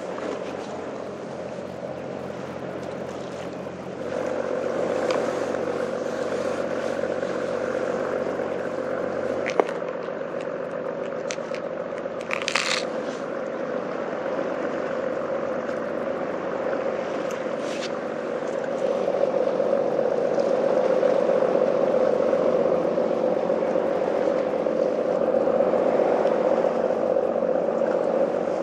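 Steady outdoor droning background, with a few short clicks and scrapes of fishing tackle being handled, the sharpest click about ten seconds in.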